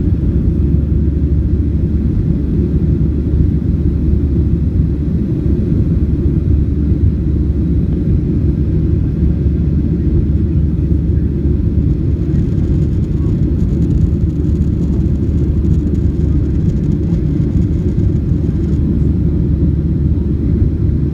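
Steady low rumble of a Boeing 737-700's CFM56 jet engines and airflow heard in the cabin, even throughout.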